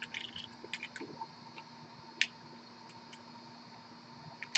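Faint scattered clicks and rustles of trading cards and card packaging being handled, with one sharper click about two seconds in, over a low steady hum.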